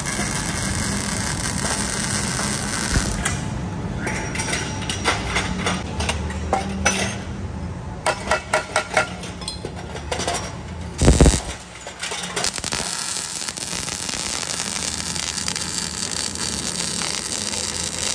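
Arc welding on a metal motorcycle silencer pipe: a steady crackling hiss with a low buzz, which stops about three seconds in. Then come light metallic taps and clicks, a quick run of them around eight seconds in, as the pipe is handled, and one heavy thud about eleven seconds in. The welding hiss starts again for the last five or six seconds.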